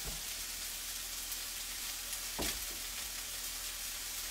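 Chopped food sizzling steadily as it fries in a pan, with one brief knock about two and a half seconds in.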